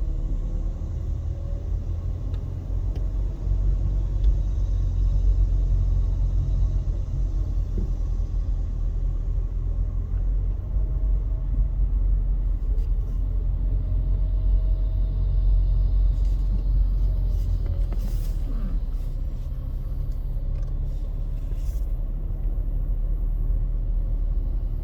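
Car in motion, heard from inside the cabin: a steady low road-and-engine rumble, with a few faint clicks about two-thirds of the way through.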